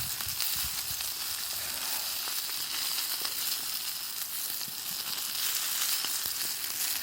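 Food sizzling over a campfire: a steady hiss with faint, scattered crackles.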